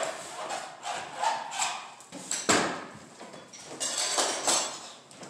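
Laminate flooring planks being set into place: a series of sharp wooden clacks and knocks, the loudest about two and a half seconds in, with work-boot footsteps on the subfloor.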